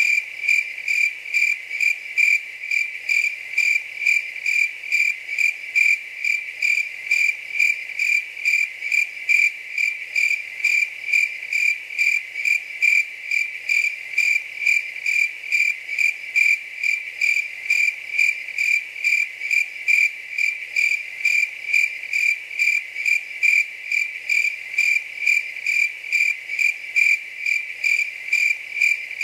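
Cricket chirping steadily: an even, unbroken run of short, high chirps on a single pitch, a couple each second.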